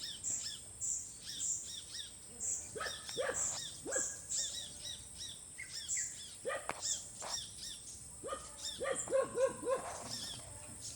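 Several wild birds calling together: many short high chirps repeat throughout, and lower-pitched calls come singly and then in a quick run of five or six near the end. A steady high-pitched whine sits behind them.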